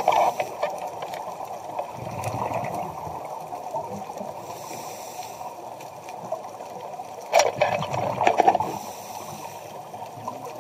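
Underwater sound of a scuba diver breathing through a regulator, with bubbly exhalations at the start and again from about seven to eight and a half seconds in, and a quieter hiss between them. The sound is heard through the camera's underwater housing.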